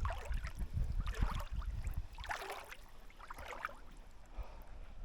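Loch water splashing in four short bursts about a second apart, over a low rumble of wind on the microphone.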